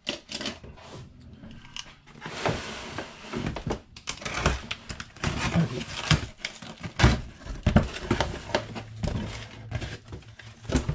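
A cardboard shipping box being opened and unpacked by hand: rustling and scraping of cardboard with irregular knocks and thumps as flaps are pulled and a smaller box is set down on the bench. A longer stretch of rustling starts about two seconds in.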